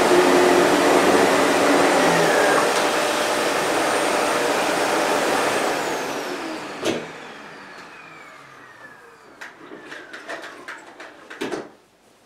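Sebo Airbelt K1 canister vacuum running steadily, then switched off about six seconds in; its motor whine slides down in pitch as it spins down. A knock and then several clicks and knocks follow as the motor winds down.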